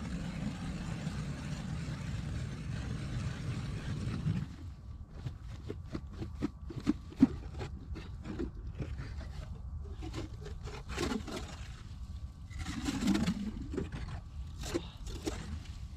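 Ice auger drilling a hole through river ice: a steady grinding noise that stops suddenly about four and a half seconds in, followed by scattered scrapes and knocks as the auger and ice chips are worked at the hole.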